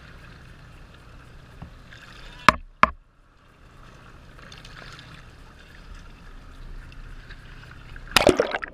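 Sea water sloshing against a waterproof camera held at the surface, with two sharp slaps about two and a half seconds in, a muffled stretch as it dips under, and a loud burst of splashing near the end.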